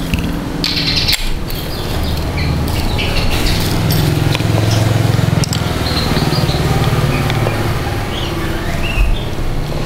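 An engine running steadily in the background, swelling louder about four to seven seconds in, with birds chirping and a few sharp metallic clicks from a ratchet wrench and engine parts being handled.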